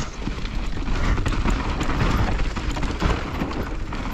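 Mountain bike riding fast down a loose, dusty dirt trail: a steady rushing noise with a low rumble and many small clatters and knocks from the tyres and bike over the rough ground.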